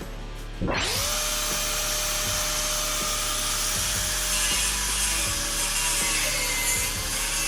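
An angle grinder starts up about half a second in, its motor whine climbing quickly to a steady pitch. It then runs on steadily, grinding metal with a dense hiss.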